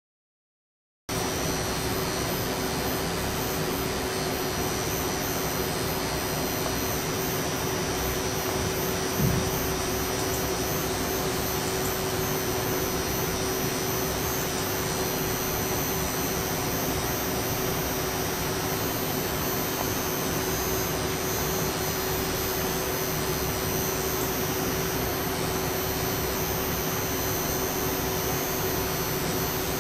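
Steady fan whir and hiss with a constant low hum from running electronic equipment, starting about a second in. A single brief knock about nine seconds in.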